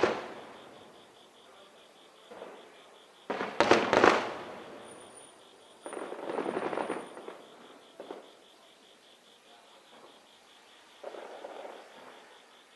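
Aerial firework shells bursting overhead: a loud bang at the start, a cluster of heavy bangs about three to four seconds in, then a crackling burst around six to seven seconds and fainter bursts later, each trailing off in echo.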